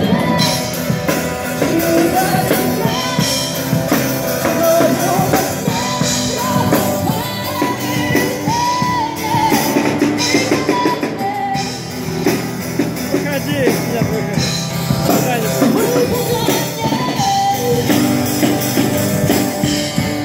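A rock-style song with a singer's voice over drums and band backing, playing without a break.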